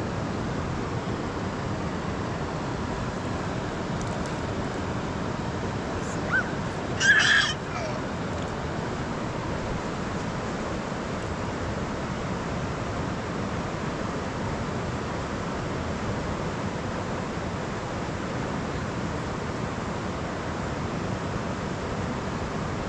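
Steady rush of river water flowing past the bank. Once, about seven seconds in, a short harsh cry stands out above it.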